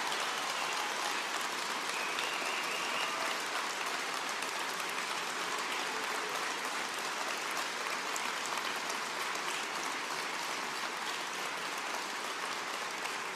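An audience applauding, sustained, easing off slightly near the end.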